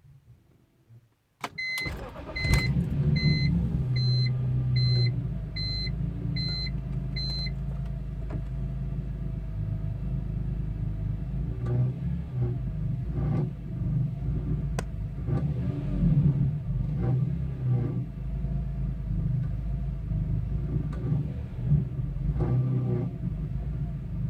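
BMW E46 M3's S54 straight-six cranks and starts about a second and a half in, then settles into a steady idle with intermittent rattling, the sign of a catalytic converter element broken loose inside one of the original headers and vibrating in the exhaust flow. A dashboard warning chime beeps about nine times, evenly spaced, just after the start.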